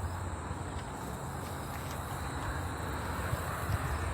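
Steady outdoor background noise: a low, even hum with a faint hiss and no distinct events.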